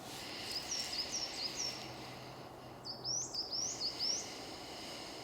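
Woodland birds singing: runs of short, high whistled notes repeated in quick phrases, twice, over a steady outdoor background hiss.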